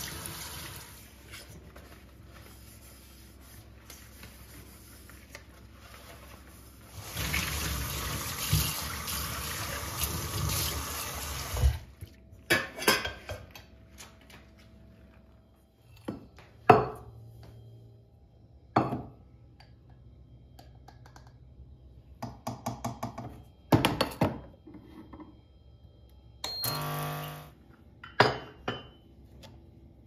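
Kitchen tap water running into a stainless steel sink as a stainless steel pot is rinsed, loudest for a few seconds near the middle. After the water stops, steel pots clink and knock several times as they are handled and set down, with a short buzz near the end.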